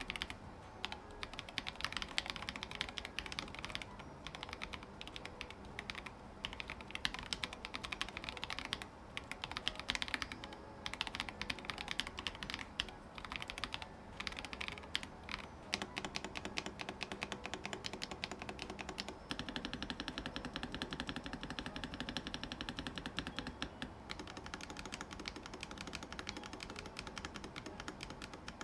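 Typing on a mechanical keyboard fitted with SARU Mars Orange linear switches: rapid keystroke clicks in runs with short pauses, becoming a more continuous, even stream about two-thirds of the way through.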